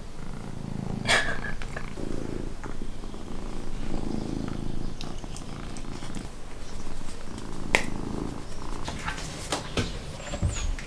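A calico cat purring close by: a low rumble that swells and fades in stretches of about a second, with a few light clicks and rustles over it.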